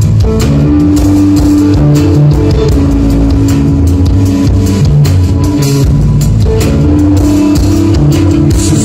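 Rock band playing live: guitar over a steady drum-kit beat in an instrumental passage.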